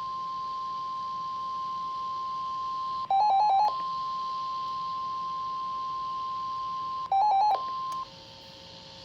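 NOAA Weather Radio warning alarm tone: a steady single tone near 1 kHz that marks an incoming warning. It is broken twice, about three and seven seconds in, by louder half-second bursts of about four quick lower beeps, and it stops about a second before the end.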